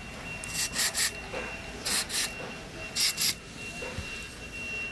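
Aerosol lubricant can squirting through its straw in short hissing bursts, coming in three quick clusters about a second apart, onto the pulleys and moving parts of a motorized drapery rail.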